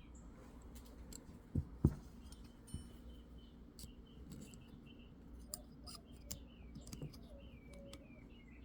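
Small metal revolver parts being handled and fitted by hand: scattered light clicks and taps, with two sharper knocks close together about two seconds in.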